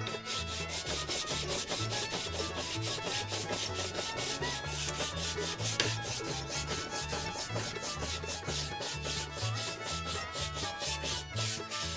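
Sandpaper rubbed by hand along a glued bamboo rod blank in quick, even back-and-forth strokes, rasping steadily as excess glue is taken off and the blank is smoothed.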